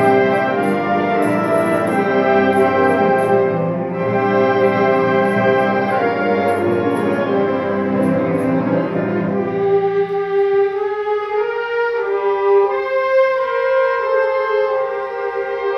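Concert band playing, with brass prominent in a full sustained sound. About ten seconds in the low instruments drop out, leaving only the higher instruments playing melodic lines.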